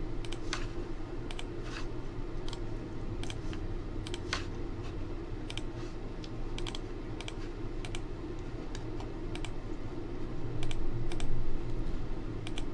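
Scattered clicks of a computer mouse and keyboard, some in quick pairs, over a steady low hum, with a brief louder low rumble about ten and a half seconds in.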